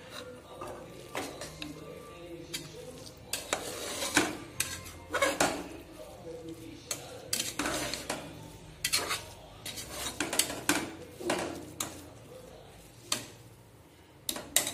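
Steel spoon stirring cooked rice and lentils in an aluminium pressure cooker, clinking and scraping against the pot's sides and bottom again and again at an irregular pace.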